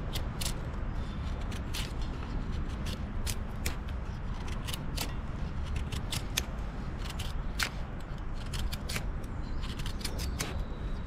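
Mora Garberg bushcraft knife carving a feather stick: a quick, irregular run of short shaving cuts, about two to three a second, as the blade peels curls off a light wooden stick. A steady low rumble runs underneath.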